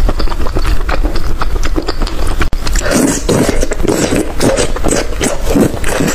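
Eating noises: irregular clicks, knocks and short chewing sounds over a steady low rumble.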